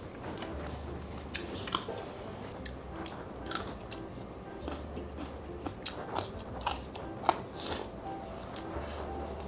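A person biting and chewing crunchy food in a run of sharp, irregular crunches, the loudest about seven seconds in.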